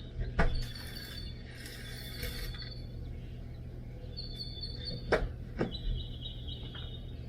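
Starling nestlings giving high, held begging calls in several stretches. Under the calls are scraping and three sharp knocks as nest material is dug out of a dryer vent.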